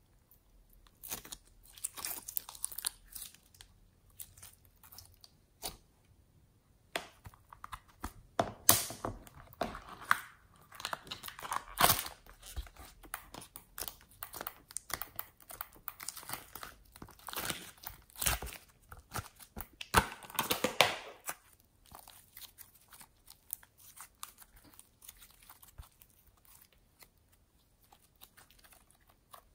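Slime being squished and stretched by hand: first clear slime packed with beads and sequins, then fluffy foam slime. It gives irregular crackles, pops and crinkles, thickest about eight to twelve seconds in and again around twenty seconds, and thinning out near the end.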